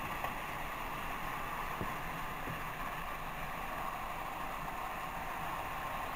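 Several battery-powered Trackmaster toy trains running on plastic track: the steady whir of their small motors and gears, with a few faint clicks.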